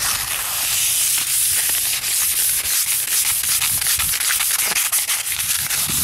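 Sheet of 400-grit sandpaper rubbed by hand over the oxidised painted fiberglass hull of a 2005 Sea-Doo RXT, dry sanding in rapid repeated strokes. A continuous high hiss.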